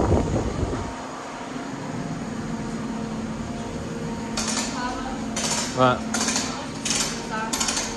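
Metal clanking and clattering: a run of sharp, irregular strikes from about halfway in, as metal tools or parts are handled, over a steady low hum.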